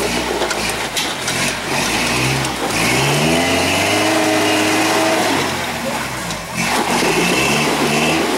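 Rock-crawler truck's engine revving up under load as it climbs a rock ledge: the pitch rises, holds steady at high revs, dips briefly about six seconds in, then picks up again.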